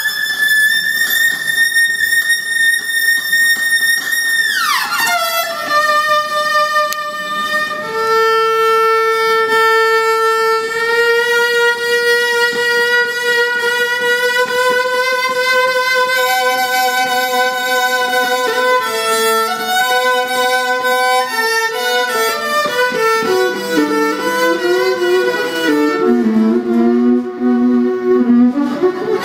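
Electric violin bowed in long held notes, with a long downward slide about five seconds in, then a slow melody that steps down to low notes near the end and slides up again at the close.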